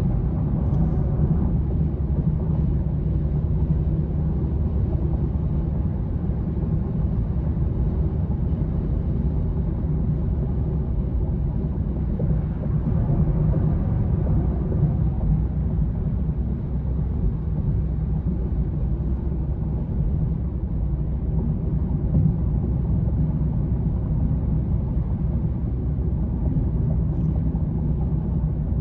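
Steady low rumble of road traffic, even throughout, with no voices over it.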